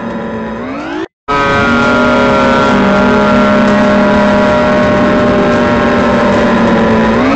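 Loud engine sound effect: a steady droning hum with many overtones. It rises in pitch and cuts off about a second in, starts again after a brief gap, and holds steady until it rises once more near the end.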